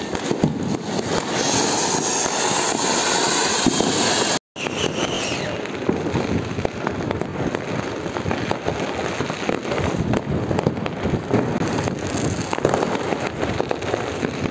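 Ground fountain firecrackers (anar) hissing and sputtering as they spray sparks. After an abrupt break about four seconds in, there is a continual crackle of many distant firecrackers popping and bursting.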